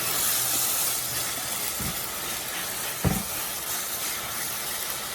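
Butternut squash halwa cooking in ghee in a non-stick pan while being stirred: a steady hiss, with two soft low knocks near the middle, the second louder.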